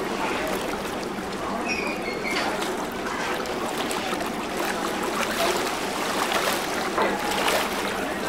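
Steady wash of river water, an even rushing and trickling noise.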